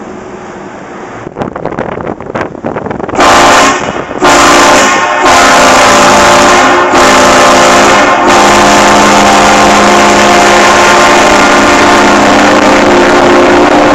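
Car-mounted train horn blasting a chord of several tones: a short blast about three seconds in, then a very loud long blast held for about ten seconds with a few brief breaks. A few scattered knocks come before the horn.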